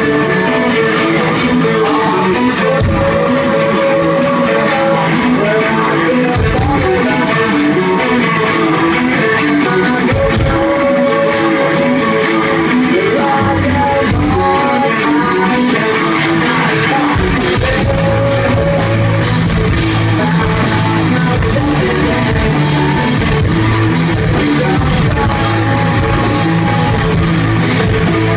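Live rock band playing loudly: electric guitars and drum kit with sung vocals. The low end grows fuller about two-thirds of the way through.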